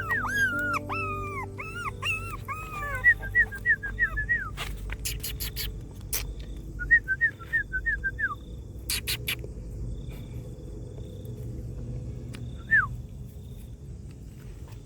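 Dog whimpering in short, high-pitched whines: a long run of them in the first four seconds, a shorter run of about five near the middle, and one more near the end. A few sharp clicks sound between the runs.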